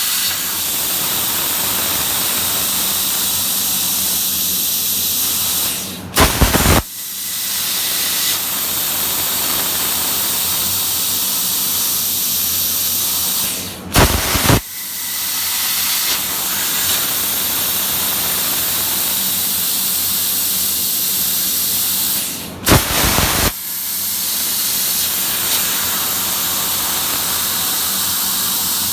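ArcDroid CNC plasma cutter's torch hissing steadily as it cuts, broken three times by a short pause with a few sharp loud bursts.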